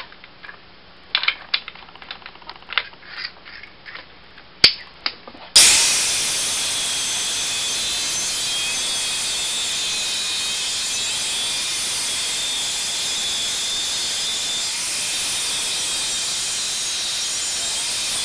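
A few seconds of clicks and knocks from handling the tool and workpiece, then an angle grinder starts suddenly about five seconds in and runs steadily, cutting through a steel plate.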